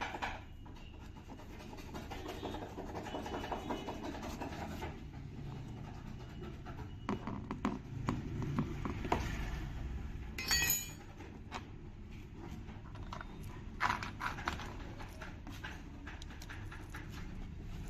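Hand-tool work on washing machine parts: scattered clinks and knocks with stretches of scraping and rubbing. The sharpest clinks come about ten and fourteen seconds in.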